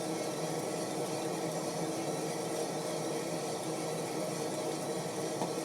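Coffee roaster running steadily, its motor and exhaust fan making an even drone with a low hum, while the beans enter first crack. A single faint pop sounds near the end.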